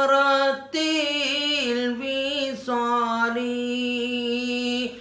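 A man singing an unaccompanied Arabic devotional chant in long drawn-out notes, the voice wavering through ornaments and then holding one steady note for about two seconds near the end.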